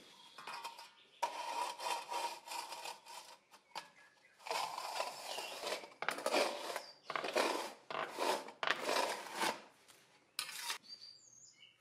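A hand tool scraping over a mortared, plastered wall in a series of strokes, about eight rasping passes of around a second each, as the wall around a stovepipe lining is smoothed.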